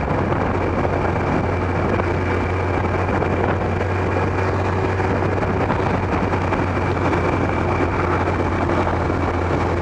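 Kawasaki ZX-12R motorcycle's inline-four engine running steadily while riding, mixed with a steady rush of wind noise on the microphone.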